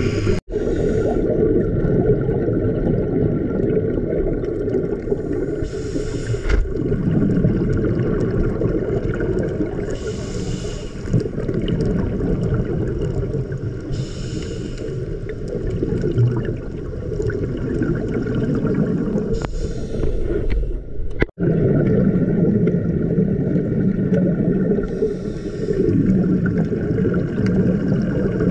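Underwater scuba-diving sound: a steady low rumble, with a bubbling hiss of regulator exhaust about every four seconds as the diver breathes out. The sound cuts out briefly twice, about half a second in and about three quarters of the way through.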